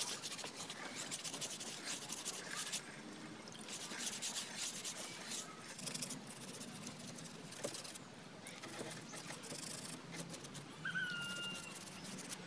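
Hand scrubbing of a motor scooter's wet, soapy front wheel and brake disc with a small scrubber: quick, uneven scratchy rubbing strokes. A short high chirp near the end.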